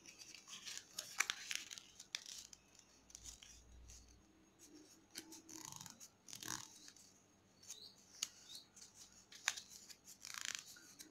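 Red origami paper crinkling and rustling as it is folded and creased by hand, in short scattered crackles with a few sharp clicks.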